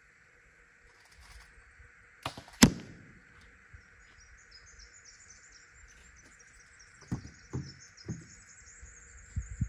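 A bow shot from a PSE Carbon Stealth: a small click, then a sharp crack of the string's release with a short ring, about two and a half seconds in. A few soft knocks follow later, and birds chirp high and thin.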